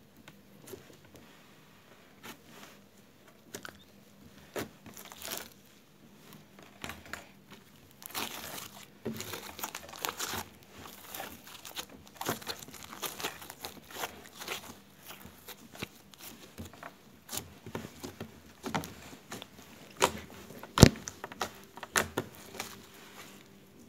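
Yellow glitter slime being squeezed, poked and folded by hand, giving irregular wet crackles and small pops. The crackling is busiest from about a third of the way in, with one sharp pop near the end.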